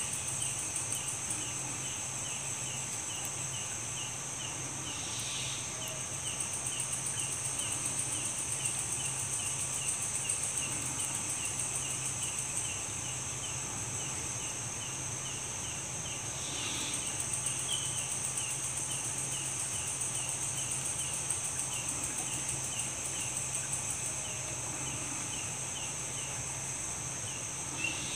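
Night insect chorus: a steady high-pitched buzzing of crickets, with a quicker chirp repeating about three times a second and a low steady hum underneath.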